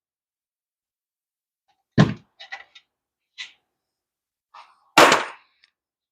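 Two sharp knocks about three seconds apart, with a few light clicks and taps between them: hand tools working on the front brake caliper bracket of a Nissan Murano.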